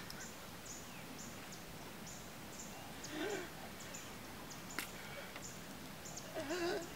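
Quiet outdoor evening background of insects chirping, short high chirps about twice a second. A person's low wavering voice is heard briefly about three seconds in and again near the end, with a single click in between.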